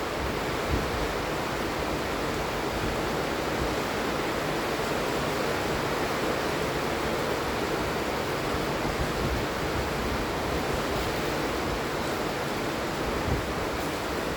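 Steady rain falling in a dense, even hiss.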